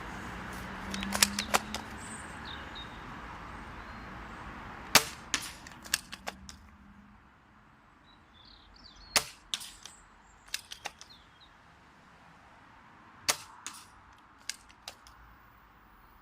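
ZM51 spring-powered bolt-action airsoft sniper rifle firing four times, about every four seconds. Each sharp shot is followed by a few quieter clicks as the bolt is worked.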